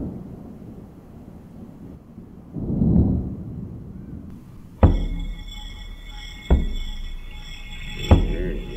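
Thunder rumbling low, once fading and once swelling again, at the start of a post-rock track. About five seconds in the music enters: a held high chord with a deep thud roughly every second and a half.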